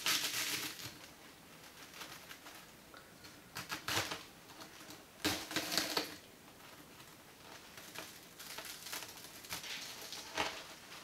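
Steel pu'er pick prying and scraping dry leaves off a compressed 2009 Yiwu raw pu'er tea cake: brittle crackling and crunching in several short bursts, with quieter scratching between them.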